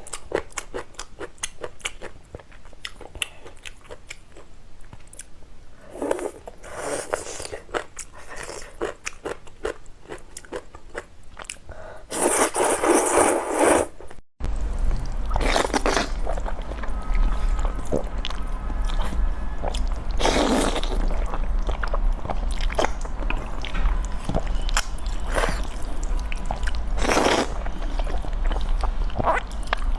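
A person eating noodles close to the microphone: quick wet chewing and crunching clicks, with a few longer, louder slurps. About halfway through the sound cuts abruptly, and afterwards a steady low hum runs under the eating.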